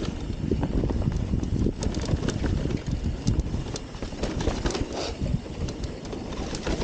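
Mountain bike riding fast down a dry dirt trail: a steady low rush of tyres rolling over loose dirt and wind on the microphone, with frequent sharp clicks and knocks as the bike rattles over bumps.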